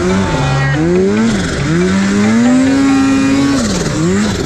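Snowmobile engine revving up and down as the rider works the throttle in deep powder: the pitch rises and falls several times, holding high for about a second and a half in the middle.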